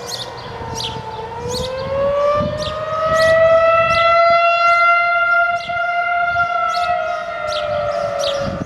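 Civil-defence air-raid siren wailing during a test. Its tone dips slightly, climbs about a second and a half in, holds at its loudest and highest for a couple of seconds, then slowly sinks toward the end.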